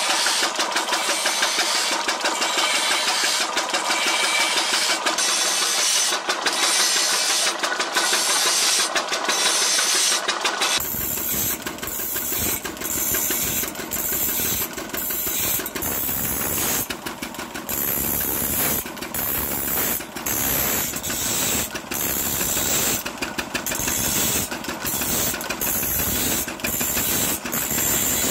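Belt-driven abrasive grinding wheel grinding the teeth of a long saw blade: a harsh grinding hiss that breaks off and starts again over and over as the blade is moved from tooth to tooth. About a third of the way in the sound changes, and a low engine drone from the stationary engine driving the belt runs under the grinding.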